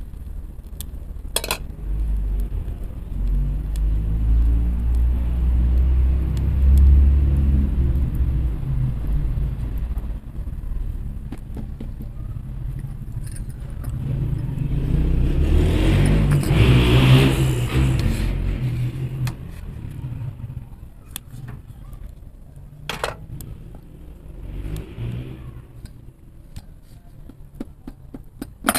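A motor vehicle's engine: a low rumble, then a louder pass that swells and fades about two-thirds of the way through. A few sharp clicks.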